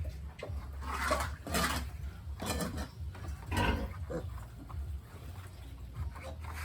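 Pigs giving about five short grunting calls over a few seconds, over a steady low hum.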